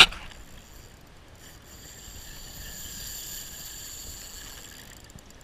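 A spinning reel under load from a big fish on light tackle: a steady high whine that swells for about three seconds and then fades. A sharp knock right at the start.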